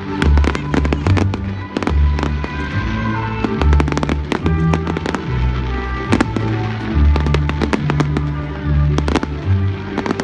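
Fireworks going off in many irregular sharp bangs and crackles, over loud show music with long, low bass notes.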